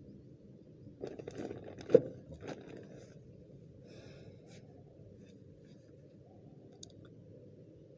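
Plastic fertilizer packet crinkling and rustling as it is handled and set down, with one sharp tap about two seconds in. A low steady background noise remains after that.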